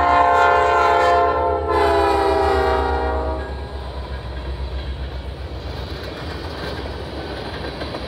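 Horn of a Norfolk Southern diesel freight locomotive blowing a loud chord as it passes. Its pitch drops about a second and a half in and it cuts off about three and a half seconds in. The rumble of the locomotives and the freight cars' wheels rolling over the rails carries on after it.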